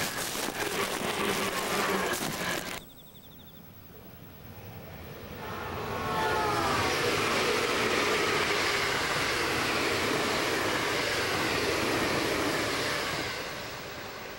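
JR East 651 series electric express train passing at speed: a rushing of wheels on rail that swells about five seconds in, holds steady and loud, and fades near the end as the train recedes. Before that, about three seconds of crackling noise cuts off abruptly.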